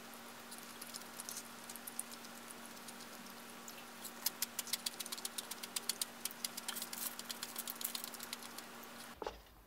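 Close-miked eating: chewing and mouth sounds with many small crisp clicks, thickest from about four seconds in, over a faint steady hum.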